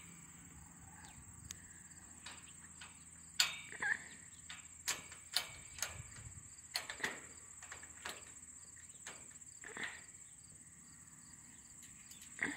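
Faint, steady, high-pitched insect trill, with scattered faint clicks and knocks.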